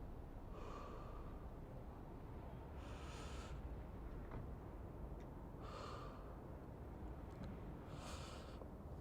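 Slow breaths close to the microphone, four in all, about two and a half seconds apart, over a steady low background of city ambience.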